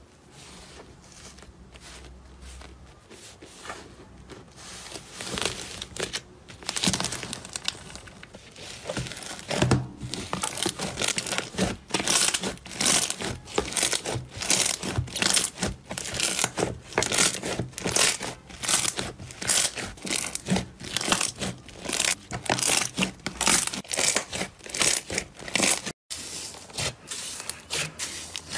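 Fluffy slime pressed and pulled apart by hand, making rapid crackling, tearing pops. The pops are sparse at first and grow dense from about ten seconds in.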